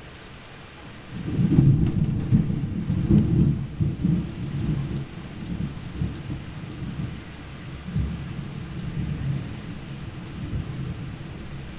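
Thunder over steady rain: a low rumble breaks in about a second in, is loudest over the next few seconds, then dies away slowly, with another swell about eight seconds in.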